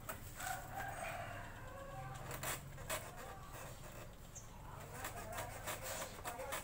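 Scattered clicks and knocks from a circuit board and its cables being handled, over a steady low hum. A rooster crows in the background during the first second and a half.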